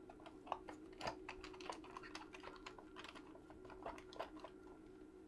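Light, irregular clicks and taps of small parts and packaging being handled while fetching a replacement spindle motor, a few louder knocks among them, over a faint steady hum.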